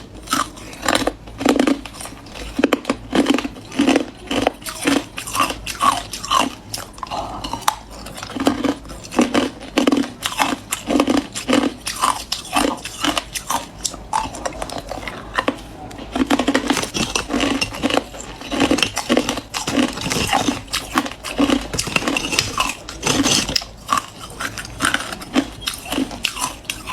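A person biting and chewing hard clear ice: a steady run of sharp, crisp crunches, about two a second.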